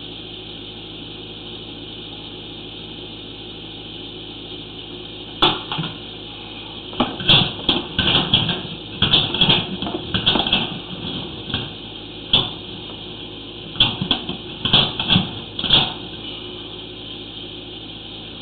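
Sewer inspection camera's push cable being fed down the line, giving irregular knocks and rattling clusters over a steady hiss and hum. The knocks start about five seconds in and stop a couple of seconds before the end.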